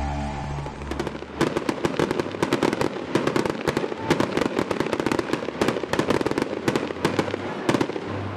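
Fireworks going off: a fast, irregular string of sharp cracks and pops, several a second, over a rushing hiss. It starts about a second and a half in, after the last of some music fades out.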